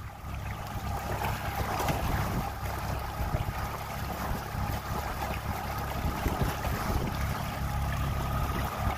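Small fishing boat under way at trolling speed: an outboard motor running steadily, with water rushing along the hull and wind buffeting the microphone.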